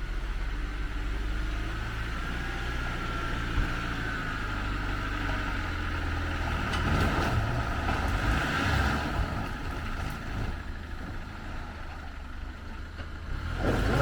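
A 4x4's engine running steadily at low revs, picking up for a few seconds about halfway through before easing off again.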